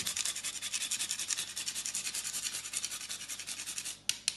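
Whole nutmeg being grated on a long rasp grater: quick back-and-forth scraping strokes, several a second. The strokes stop just before the end, and a few sharp taps follow.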